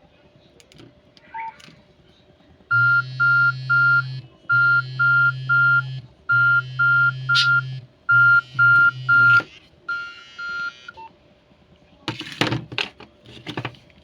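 Electronic alarm beeping in quick groups of three, five groups in a row, with a low buzz under the first four groups; a few knocks follow near the end.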